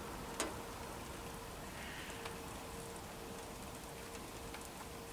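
Faint rain falling, with scattered drops ticking now and then and one sharper tick about half a second in. A faint steady hum runs underneath.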